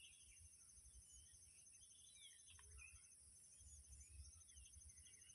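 Faint birds chirping, with short curved calls scattered through, over a steady high hiss and a low rumble.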